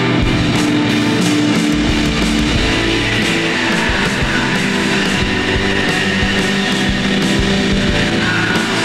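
Shoegaze noise rock: a dense wall of fuzz-distorted electric guitar over sustained bass notes, with drums keeping a steady beat.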